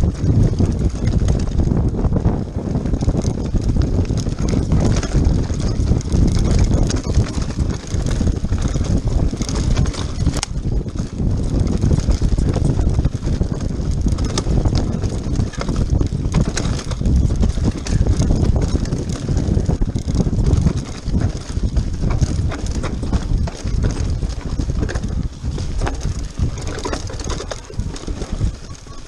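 Mountain bike riding fast down a loose rocky trail: the tyres crunch over stones and the bike rattles without a break. Near the end the rattling eases as the trail turns to smoother dirt.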